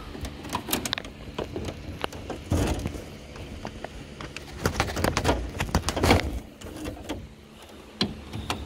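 Plastic mesh air filters being slid into a mini-split indoor unit: the plastic frames click, knock and scrape irregularly against the housing, with a few louder clatters in the middle.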